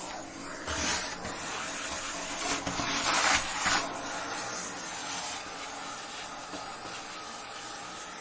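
Vacuum cleaner running: a steady rush of air with a constant motor hum, growing louder in surges about a second in and again for about a second and a half around three seconds in.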